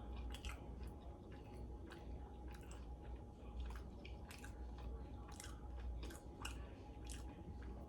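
Chewing and biting into chicken wings: a string of small irregular mouth clicks and smacks.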